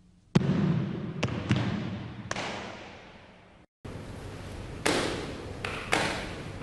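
Sharp thumps on a wooden hall floor, the stamping steps and strikes of a tai chi application demonstration, each ringing out in the hall's echo: four in the first few seconds, then after a brief break a second run of three.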